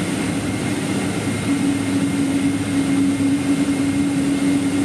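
Boeing 787 jet engines (Rolls-Royce Trent 1000) running steadily as the airliner taxis, a loud continuous rushing hum with a steady low drone that grows stronger about a second and a half in.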